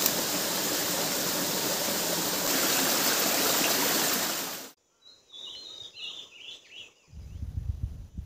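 Steady rushing water of a small rocky forest stream, cutting off suddenly about four and a half seconds in. Faint bird chirps follow, then a low rumble near the end.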